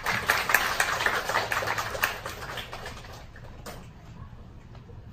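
Audience applause: many hands clapping, dense at first and thinning out after about three seconds.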